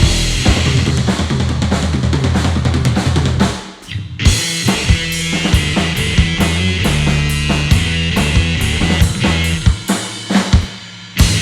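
Live rock trio playing an instrumental passage: a drum kit is prominent over bass and electric guitar. The music drops out briefly twice, about four seconds in and again near the end.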